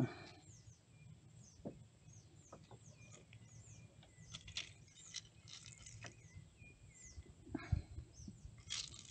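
Small birds calling with many short, high, falling chirps, over scattered light clicks and knocks from handling; a sharp knock right at the start and another about eight seconds in.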